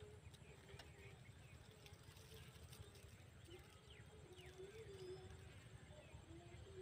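Near silence: faint outdoor background with a low rumble, a faint wavering tone and a few faint bird chirps.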